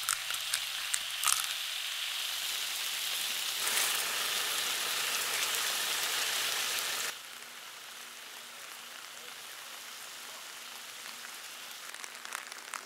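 Eggs sizzling steadily in a frying pan, with a few sharp clicks in the first second or so. About seven seconds in it cuts to a quieter steady patter of light rain, with scattered drips near the end.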